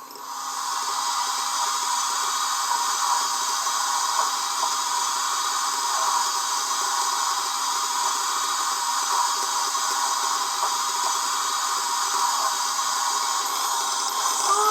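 Steady steam hiss from the sound decoder of a Lenz O gauge DB Br 86 model steam locomotive, played through the model's small speaker, with no chuffing rhythm.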